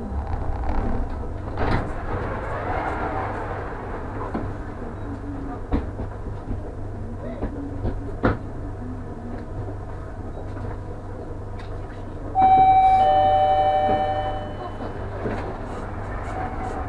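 Inside a Bombardier NGT6 tram standing at a stop: a steady low hum from the tram, with scattered knocks and passengers' steps. About twelve seconds in, a loud two-tone door chime, a higher tone then a lower one, fades over about two seconds, the usual warning that the doors are about to close.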